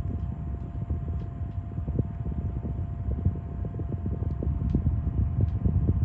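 Gegizun cordless desk fan running, its airflow buffeting the microphone in a low, uneven rumble, with a faint steady motor tone above it.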